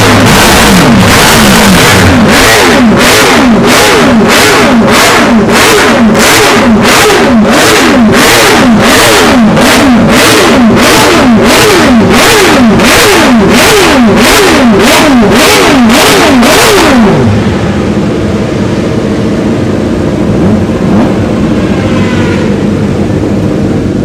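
Classic Honda racing motorcycle engine being blipped hard and rhythmically while stationary, about one and a half rising-and-falling revs a second. About 17 seconds in it drops back to a steady idle.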